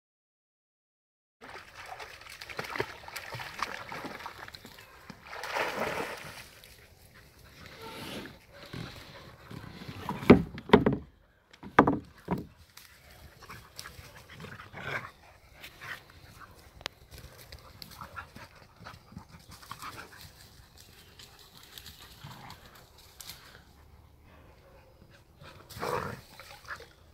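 Two Jagdterriers playing together, making irregular dog noises as they tussle, with a few louder sharp sounds about ten to twelve seconds in.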